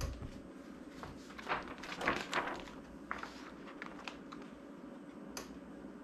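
Soft rustling and crinkling as a heat transfer vinyl sheet on its plastic carrier is laid onto a T-shirt and smoothed into place by hand, mostly in the first half, with one light click near the end.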